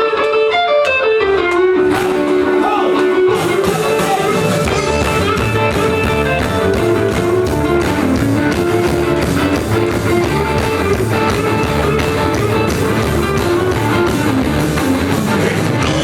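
Live rock band starting a song: an electric guitar plays alone for the first couple of seconds, then bass and drums come in and the full band plays on.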